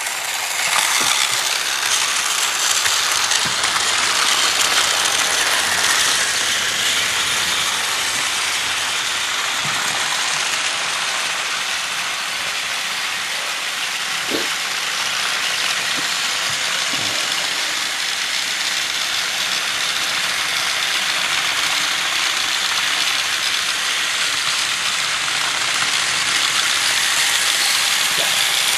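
Seven battery-powered TrackMaster toy trains running at once on their tracks: a steady whirring and rattling of small gear motors and plastic wheels.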